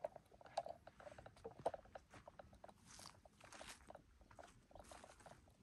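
Faint footsteps crunching on a hiking trail: scattered small clicks, then a few short crackly steps.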